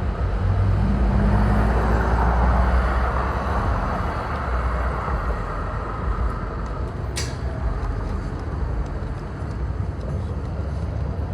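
A vehicle engine's low rumble, louder for the first few seconds and then easing off, with one short sharp hiss about seven seconds in.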